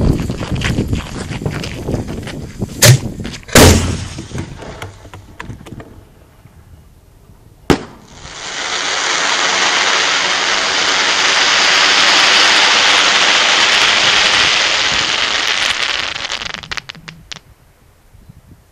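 A 6-inch crackling willow firework shell breaks with one sharp bang about eight seconds in, then its falling stars give about eight seconds of dense crackling that fades out near the end. Two loud bangs come about three and four seconds in, before the break.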